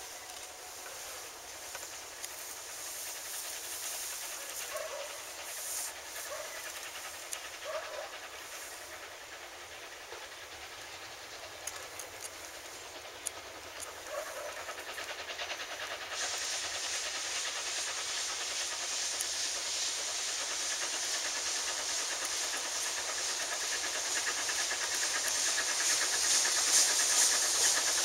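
Narrow-gauge steam locomotive approaching under steam: faint at first, then from about halfway through its rhythmic exhaust chuffs and steam hiss grow steadily louder.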